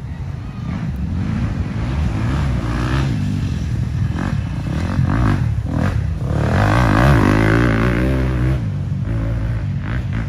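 Off-road motorcycle engines revving on a muddy race course, the pitch climbing and dropping as the throttle is worked; loudest about six to eight seconds in.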